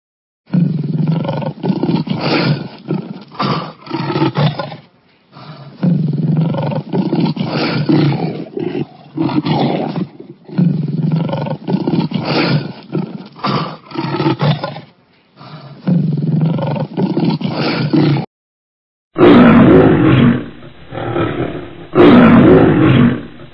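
A big cat roaring, a run of pulsing roars and growls with the same few seconds of recording repeated about four times. After a brief break, a second, louder recording of roars follows.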